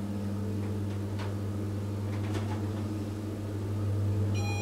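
Schindler hydraulic elevator car travelling, with a steady low hum from the drive and faint clicks and rattles of the car. Just before the end a steady high-pitched tone begins.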